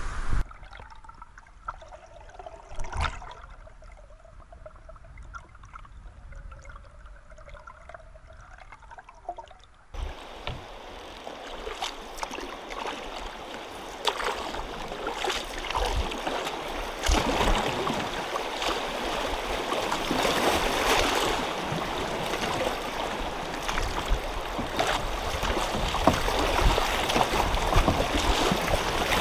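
River water rushing and splashing against the hull of a loaded canoe as it runs through riffles and small rapids, growing louder toward the end. For the first third the water is much quieter, with a single knock about three seconds in.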